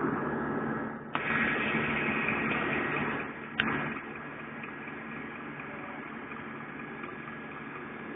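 Fire engines running at a fire scene, a steady low diesel hum under a rushing hiss. The hiss is louder for the first four seconds, with two sharp clicks, then settles to a lower steady level.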